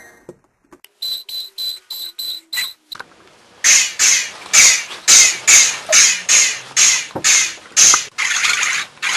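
Electronic steam-train effect from a toy sound-effect wand. A quick series of six short ticks is followed by a steady run of loud, hissing chuffs at about two a second.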